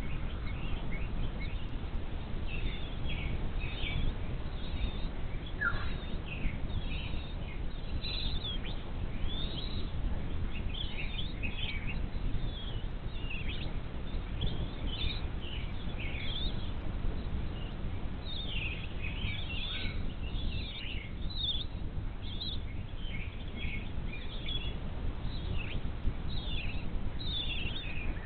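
Birds chirping: many short, high chirps and whistles overlapping throughout, over a steady low rumble.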